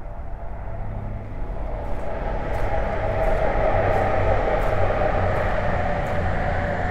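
Steady mechanical noise of a passing vehicle, growing louder over the first few seconds and then holding.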